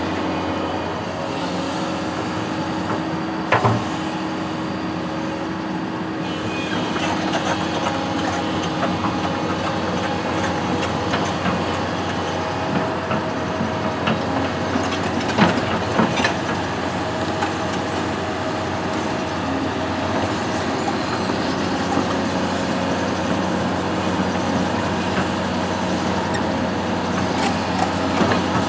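Construction machine's engine running steadily, with a few sharp knocks, one about three and a half seconds in and a couple around the middle.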